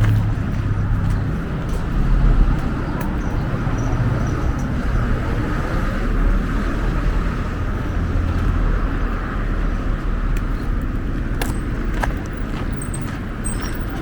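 Road traffic: a steady hum of cars passing, with a low rumble that swells and fades as vehicles go by.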